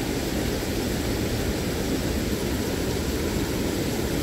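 Steady rushing of water pouring over a waterfall, an even noise weighted toward the low end that does not let up.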